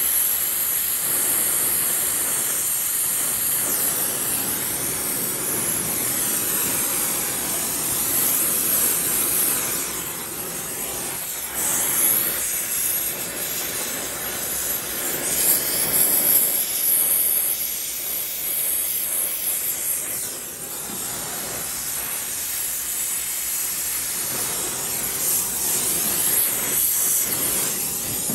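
Brazing torch flame hissing steadily as it heats a copper refrigerant line joint at the indoor coil, growing louder and softer as the flame is worked around the joint.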